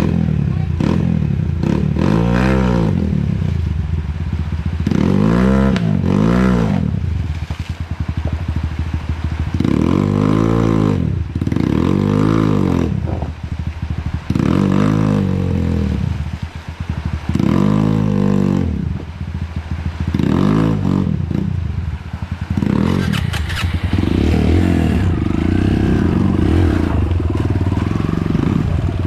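Dirt bike engine revving up and falling back again and again, about nine bursts of throttle, with steadier running in between.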